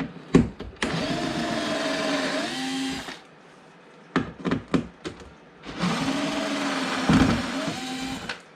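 Cordless electric screwdriver running twice for about two seconds each, backing out door-panel screws, its whine dipping and rising in pitch as the load changes. Short clicks and knocks in between.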